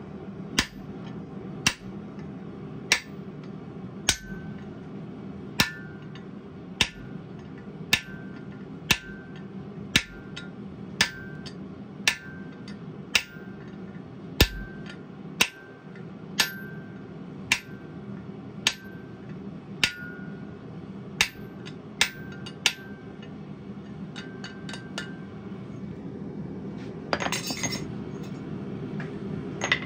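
Steady hand-hammer blows, about one a second, on a tool held against a red-hot 3/4-inch square mild steel bar on an anvil, each strike ringing metallically. The blows stop a few seconds before a short noisy burst near the end, all over a steady low hum.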